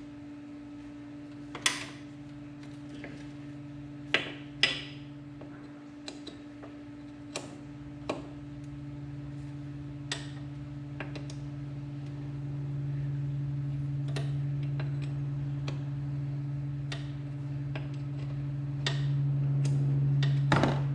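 Irregular sharp clicks and light metallic clinks over a steady low hum that grows louder in the second half.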